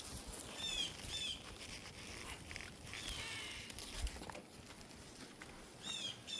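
Small birds chirping: short high chirps in quick little groups, heard three or four times, with a few light clicks in between.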